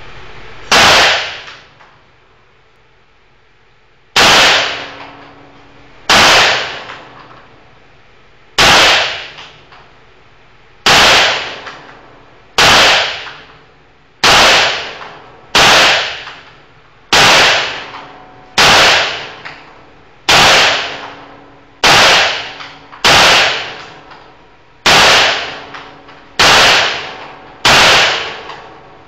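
Sig Sauer P226 X-Six pistol firing sixteen aimed single shots, each with a short ringing tail. The first few come two to three seconds apart, then they settle to about one every one and a half seconds.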